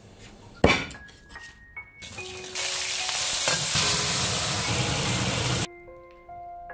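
Braised hairtail pieces bubbling and sizzling in a thick sauce in a wok. The hiss is loud for about three seconds and cuts off abruptly. A single sharp knock comes about half a second in, with soft background music notes.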